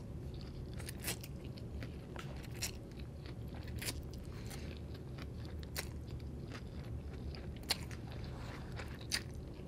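Close-up chewing of a mouthful of fried egg noodles, with a sharp crackling click every second or two.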